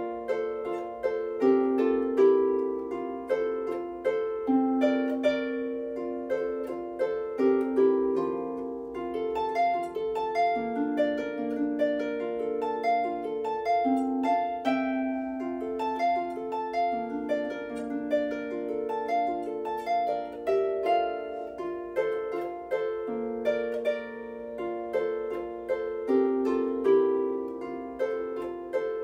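Lever harp played solo: a plucked melody over lower bass notes, each note ringing on and dying away.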